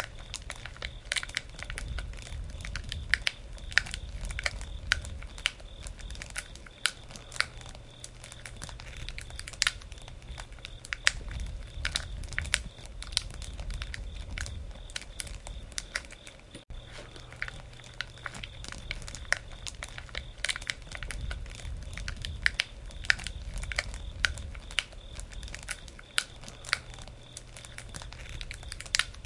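Wood campfire crackling, with irregular sharp pops and snaps over a low, steady rumble of the flames.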